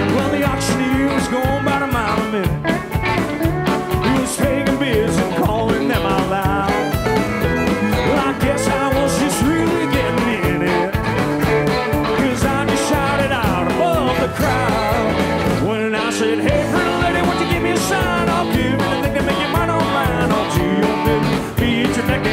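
Live country band playing an instrumental passage with fiddle, electric guitar, bass and a steady drum beat.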